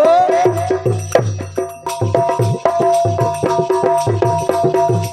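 Instrumental folk music: a drum beating a steady rhythm, about two strokes a second, with sharp clacking hand percussion over steady held drone tones.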